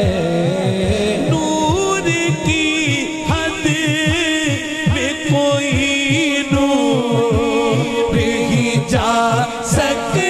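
A man singing an Urdu naat into a microphone through a sound system, in long held notes with wavering ornaments, over a low rhythmic beat.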